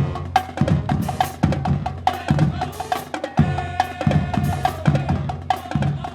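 Music with a steady drum beat: snare and bass drum hits over a low bass and a held tone.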